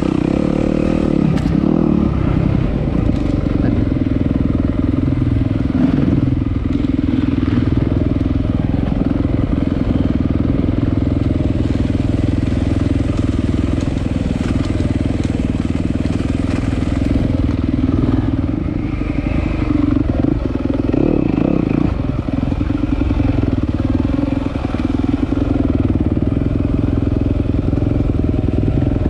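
Single-cylinder enduro dirt bike engine running steadily under way, easing off briefly a couple of times in the second half.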